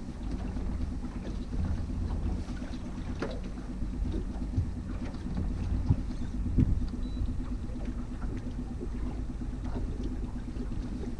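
Boat's outboard motor running steadily at trolling speed, a low rumble with a steady hum, with a few light knocks scattered through.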